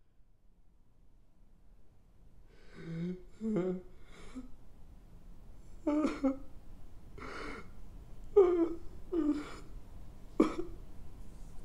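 A man crying: short broken sobs and gasping breaths, starting a couple of seconds in and coming roughly once a second.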